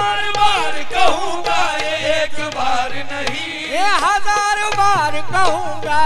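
Qawwali music: a singer's wordless, winding melodic runs over steady held accompaniment, with hand-drum strokes keeping the rhythm.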